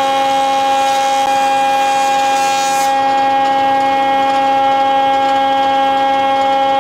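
Planer-thicknesser running with a loud, steady whine from its cutterhead. A hiss of wood being cut runs over it and stops abruptly about three seconds in, as a thin strip leaves the machine.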